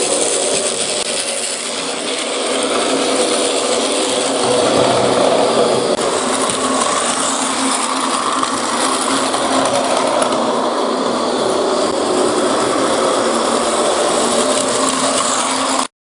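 Battery-powered Plarail toy trains running on plastic track: a steady small-motor whir with a rattling clatter of wheels and track. It cuts off suddenly near the end.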